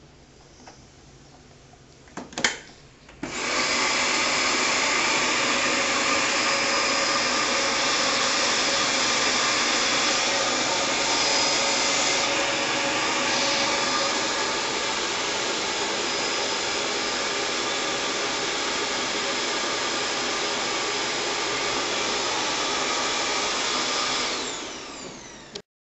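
Water-filter vacuum cleaner switched on with a click and running at a steady high whine. Near the end it is switched off and its motor spins down, falling in pitch.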